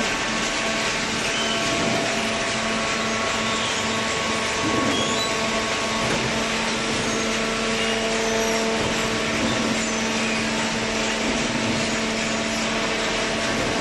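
Hydraulic cardboard baler running: a steady motor and pump hum over a dense mechanical hiss.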